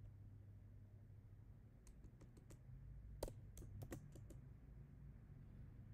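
Computer keyboard keystrokes. There are a few light taps about two seconds in, then a quick run of clicks between about three and four and a half seconds, over a faint low hum.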